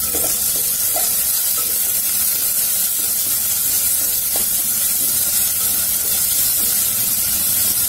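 Chopped onions and curry leaves sizzling in hot oil in a kadai, a steady frying hiss, while a wooden spatula stirs them with a few soft scrapes against the pan.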